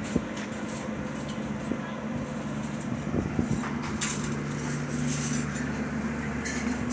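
Steady low engine hum, with a few faint clicks over it.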